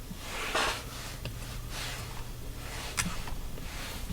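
A short breath-like hiss about half a second in, then a few small sharp clicks, over a steady low hum.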